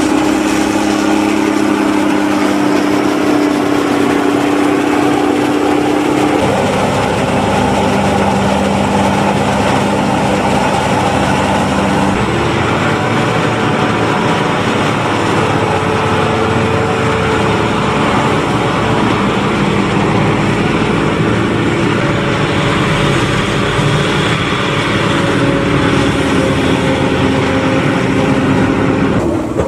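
A John Deere 7500 self-propelled forage harvester chopping standing maize, its engine and cutterhead running steadily under load, with the tractor pulling the trailer alongside also running. The engine note changes about 6 and 12 seconds in, and again right at the end.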